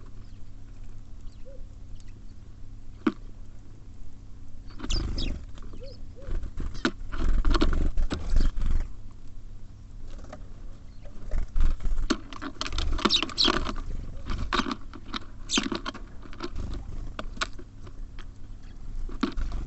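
Small birds feeding at a bird feeder: a run of pecking, scratching and tapping on the feeder, with dull knocks beneath. The sounds are sparse at first and come thick and busy from about five seconds in.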